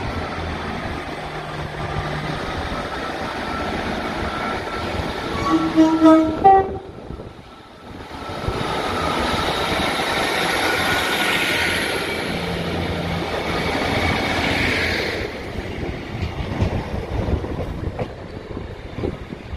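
Class 150 Sprinter diesel multiple unit running into the platform, sounding two short, loud horn blasts about six seconds in. After a brief break, a diesel unit runs past close by with steady engine and wheel noise and a high whine, fading near the end.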